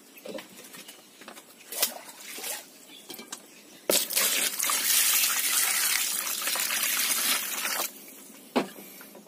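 Water pouring into a basin of fresh fish, running loudly for about four seconds before stopping suddenly, to wash the fish. It starts about four seconds in and is preceded by a few light knocks; a single knock follows near the end.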